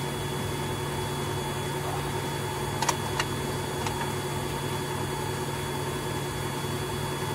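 Grundig GWN48430CX washing machine running a spin cycle with its back panel off: a steady motor and drum hum with a low, even pulsing. Three sharp clicks come about three to four seconds in.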